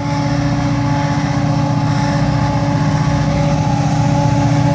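Diesel-electric locomotives BL34 and G541 working under load up a grade: a steady deep engine drone with a constant hum, growing slightly louder as the train approaches.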